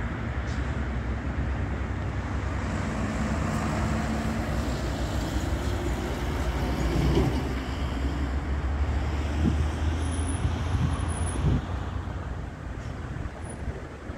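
Road vehicle engines running: a steady low engine rumble with traffic noise, and a few short swells about seven and eleven seconds in.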